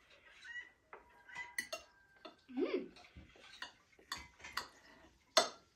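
Forks and knives clinking and scraping on plates as people eat steak: scattered light clicks, with one sharper clink about five seconds in.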